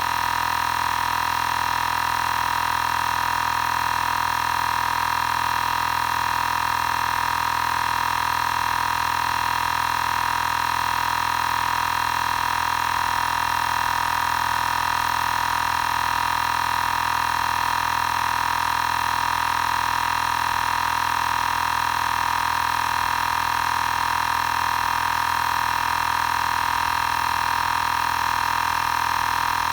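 Xiaomi Portable Electric Air Compressor 2 running steadily while it pumps up a tyre, a constant mechanical hum with a high tone on top.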